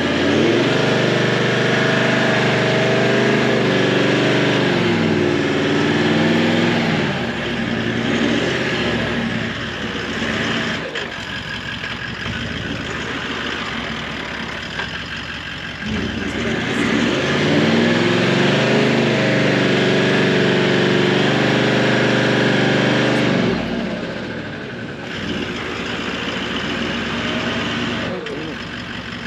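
A 4x4 ute's engine revving up and down as it strains to tow a tandem-axle caravan out of deep mud, in two long pushes with quieter, rougher stretches between them and a fresh rise near the end.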